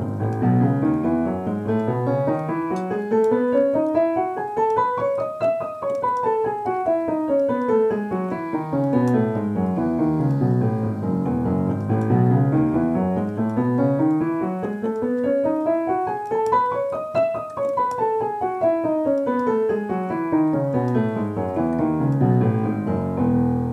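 Piano playing the E major scale over four octaves, both hands together an octave apart, running up and back down twice at an even pace. It ends on a held low E near the end.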